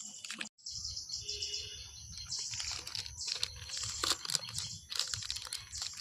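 Paper envelope being torn open and handled: crisp rustling and tearing in uneven bursts.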